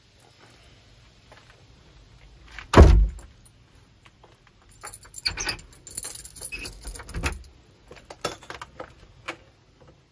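A wooden door swung shut with one loud thud about three seconds in, then a bunch of keys jangling as a key is put in and turned in the door's lock, with a low knock from the lock and a few small clicks near the end.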